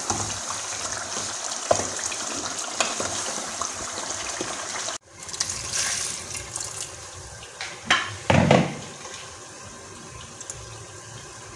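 A pot of fish stew simmering and sizzling on a gas stove, with small clicks of a wooden spoon. About five seconds in it cuts to water being poured from a jug over plantains in a steel pot, followed by a couple of loud knocks against the pot.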